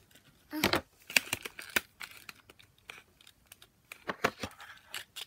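Small cardboard product box being handled and opened by hand: irregular sharp clicks and papery rustles of the packaging, clustered in the first couple of seconds and again near the end.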